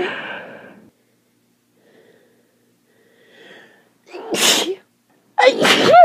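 A person sneezing twice from a pollen allergy, the sneezes about a second apart, after a short voiced exhale at the start and a few quiet breaths. The second sneeze is voiced and the louder of the two.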